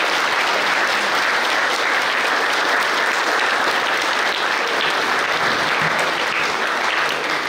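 A crowd applauding steadily, just beginning to ease off near the end.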